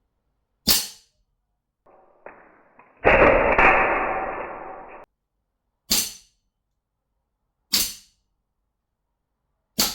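CO2-powered Colt 1911 airsoft pistol firing single shots: four sharp cracks, a couple of seconds apart. About three seconds in, a louder noise starts and fades over some two seconds.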